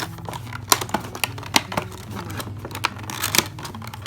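Packaging being handled and opened by hand: irregular clicks, taps and light rustles of the box and its contents, over a low steady hum.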